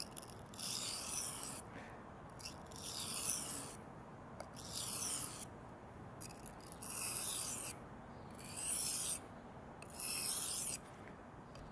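A 67 HRC CPM 10V steel knife blade stroked along a sharpening stone, six slow grinding strokes about two seconds apart.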